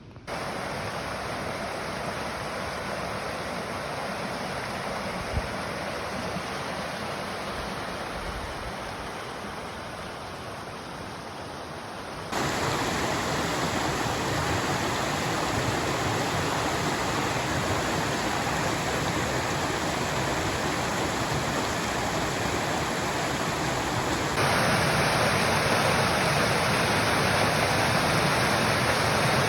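Waterfall rushing: a steady wash of falling water that jumps abruptly louder twice, about twelve seconds in and again near the end.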